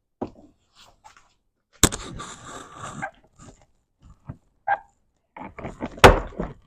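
Plastic door trim tabs being pried and popped off: a series of sharp clicks and snaps, the loudest about two seconds in and near the end, with a scraping rustle of plastic in between.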